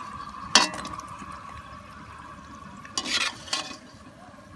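A metal spatula clinks against an aluminium karahi as fried singaras are lifted out of the oil, with a sharp clink about half a second in and two more around three seconds in, over a faint sizzle of the hot frying oil.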